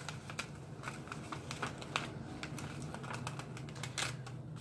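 A sheet of paper being handled and creased into a paper-airplane fold, giving light, irregular crackles and taps, over a faint steady low hum.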